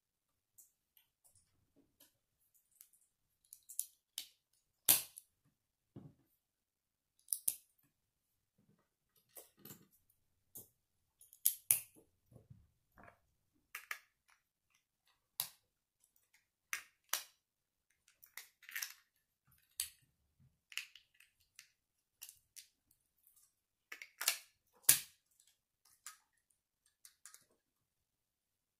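Plastic Lego bricks clicking and snapping together as they are pressed on and handled by hand: irregular short sharp clicks, with a few louder snaps spread through.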